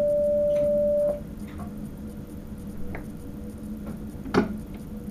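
A single steady electronic beep sounds in a train driver's cab, held for just over a second. It is followed by a few faint clicks and one sharper knock near the end, over the cab's low steady hum.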